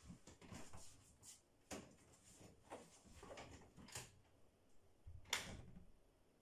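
Faint knocks and clicks of a person going out through a door, with one louder knock about five seconds in.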